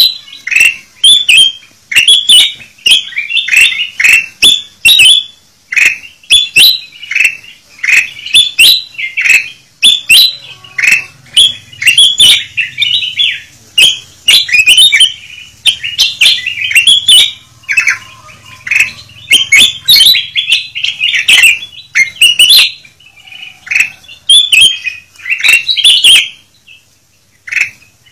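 Ruby-throated bulbuls (kutilang emas) calling noisily: a rapid, nearly unbroken run of short, bright chirping calls, several a second, from a bird-trapping lure recording meant to draw wild birds in. There is a short lull near the end.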